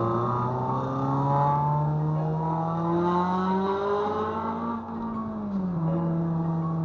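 8th-gen Honda Civic Si's K20Z3 four-cylinder, fitted with a bored RBC intake manifold, J35 throttle body and cold air intake, pulled hard under acceleration. The revs climb steadily for almost five seconds, then drop with an upshift about five and a half seconds in and hold steady.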